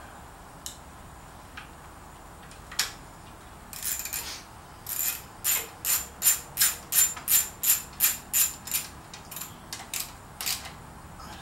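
Ratchet wrench clicking as a battery terminal bolt is turned down: a few separate clicks, then a steady run of about three clicks a second for some four seconds, then a few more.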